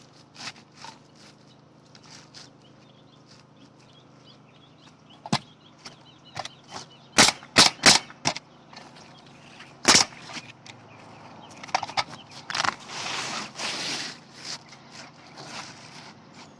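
Nails being driven into asphalt roof shingles: sharp single cracks, spaced out at first, then four in quick succession about seven seconds in and another loud one about ten seconds in. A stretch of rough noise follows about three seconds before the end.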